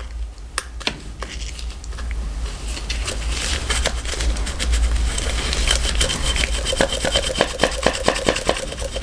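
A damp pipe cleaner being worked back and forth inside the plastic nozzle of a hot lather dispenser to clear old shaving cream: a fast scratchy rubbing with many small clicks, growing louder, with a squeak coming in about halfway through.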